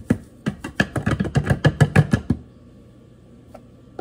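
A red plastic coffee container rapped against a glass canister, a quick run of about a dozen knocks at some six a second for two and a half seconds as coffee is knocked out of it, then one light click.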